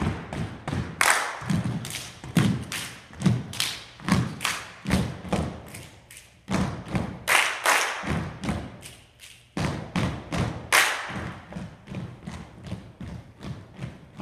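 A group clapping and stomping in rhythm on a wooden gym floor, sharp claps mixed with heavy foot stomps at two to three a second. After about eleven seconds the loud claps drop away, leaving a softer, steady beat of stamping steps.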